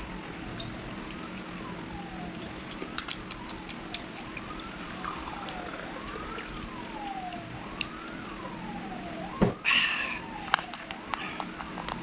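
A faint siren wailing, its pitch rising quickly and falling slowly about every second and a half, over a steady low hum. Scattered light clicks run through it, and a sharp knock with a short rush of noise comes about nine and a half seconds in.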